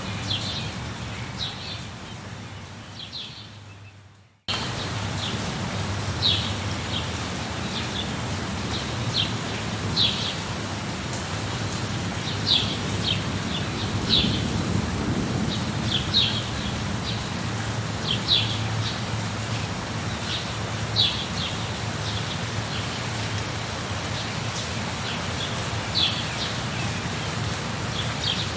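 Steady rain with short, high bird chirps every second or two. The sound fades away over the first four seconds, then cuts back in abruptly.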